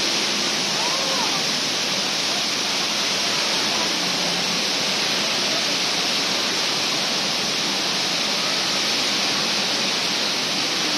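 Jewel Changi Airport's Rain Vortex indoor waterfall pouring down into its basin: a steady, even rush of falling water.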